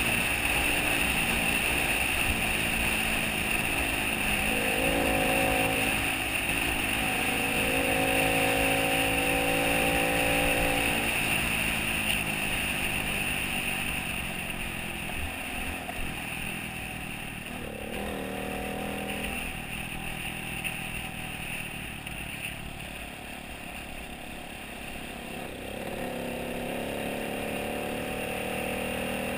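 Vehicle engine running on the move, its pitch shifting at times and climbing steadily near the end, over a constant rush of wind and road noise.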